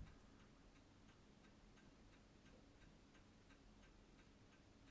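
Faint, steady ticking of a timepiece, about three ticks a second.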